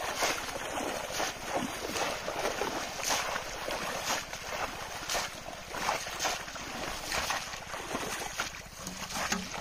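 Pond water splashing and sloshing as bamboo polo fish traps are thrust down into the shallows over and over, a splash about once a second.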